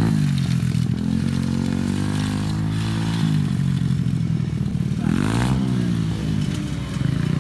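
KTM 350 four-stroke single-cylinder motocross bike engine running under throttle, its revs rising and falling several times as the throttle is opened and eased off.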